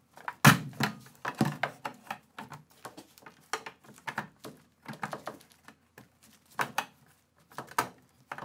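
Telescoping sheet-metal way cover sections from a VF mill clanking and knocking as they are handled and worked into one another, a run of irregular sharp metal clicks and thunks, the loudest about half a second in and fewer for a moment near the end.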